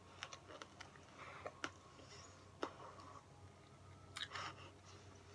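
Faint mouth sounds of a hard lemon sherbet sweet being sucked and chewed, with a few scattered clicks, over a low steady hum.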